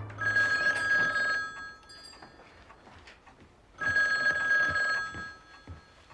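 Telephone ringing twice, each ring about a second and a half long with a pause of about two seconds between.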